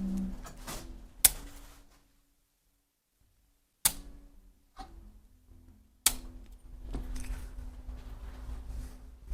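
Sharp cracks of joints popping under chiropractic adjustment: three single loud snaps, the first the loudest, with a second of dead silence between the first two.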